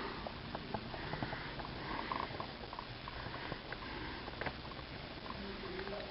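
Faint sniffling and breathing of a newborn baby between sneezes, with scattered small clicks and rustles over a low room hum.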